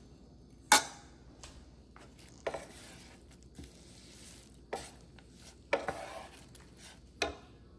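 Kitchen utensils knocking sharply five or six times at irregular intervals, with short scraping sounds after some knocks; the first knock, about a second in, is the loudest.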